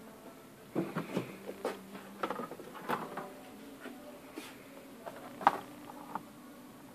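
Scattered light clicks and taps, irregular and a few per second, with the loudest knock about five and a half seconds in, over a faint steady hum.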